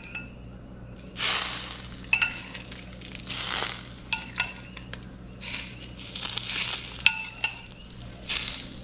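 Hot oil spooned over a foil-baked stuffed fish, sizzling in a short hiss with each of about four spoonfuls. A metal spoon clinks and rings against the small stainless-steel pot between them.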